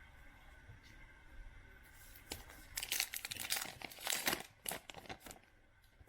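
Plastic packaging crinkling and rustling in a cluster of bursts from about two seconds in to about five seconds in, as trading card packaging is handled.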